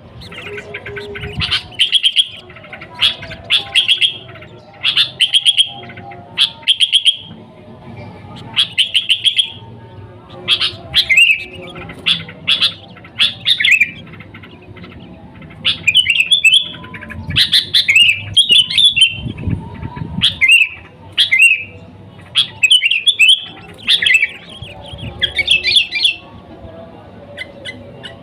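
Sooty-headed bulbul (kutilang) singing continuously in short, bubbly phrases about once a second. The phrases turn more varied and chattering about a third of the way in.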